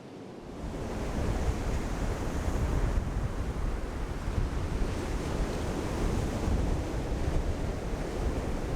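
Surf breaking on the beach, with wind gusting across the microphone and making a heavy low rumble that comes up suddenly about half a second in.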